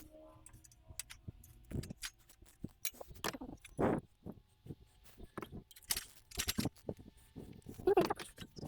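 Irregular metal clinks and clanks of hand tools and engine parts being handled during an engine teardown, a few of them with a short ring.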